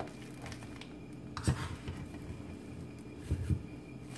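Metal spoon scooping firm berry filling into a piping bag held in a plastic measuring jug: a sharp tap of the spoon about a second and a half in, a short scrape, and two dull knocks near the end, over a faint steady hum.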